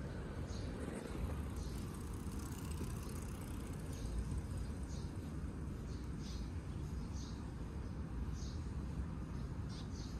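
A steady low rumble with short, high bird chirps repeating every second or so.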